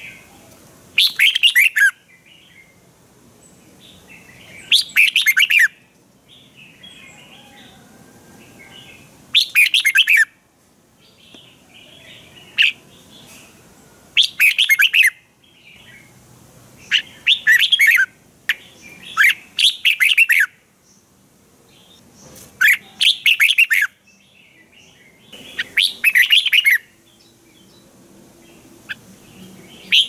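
Red-whiskered bulbul singing: short, quick, warbled phrases of about a second each, repeated every few seconds, with softer chirps in between.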